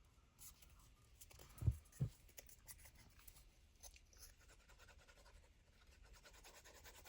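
Faint paper handling: light rustling and rubbing as paper page tabs are folded and creased, with two soft low thumps close together about two seconds in.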